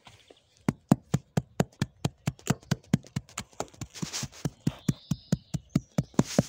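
A hand mallet knocking rapidly and evenly, about five short sharp blows a second, starting just under a second in.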